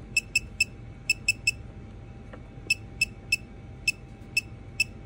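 Yellow Jacket 60648 digital torque wrench beeping: about a dozen short, high electronic beeps in irregular clusters, one with each step as the adjustment buttons are pressed to set the torque value.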